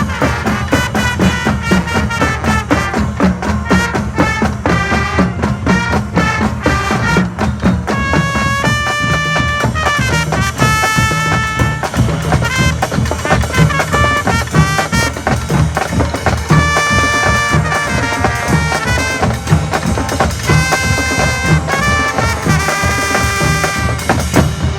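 High school marching band playing brass and drums together: busy drum-driven passages broken by long held brass chords at several points.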